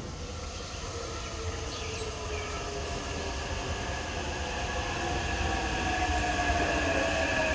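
Taipei Metro electric train pulling into a station: a rumble that grows louder as it approaches, with several whining tones that slowly fall in pitch as it slows.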